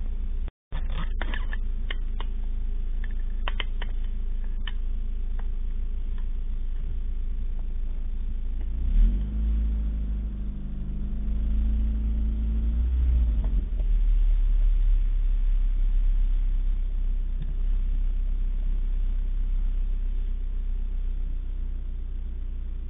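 Car engine rumbling, heard from inside the cabin. About nine seconds in an engine's pitch rises and holds for a few seconds before dropping back, with a few light clicks near the start.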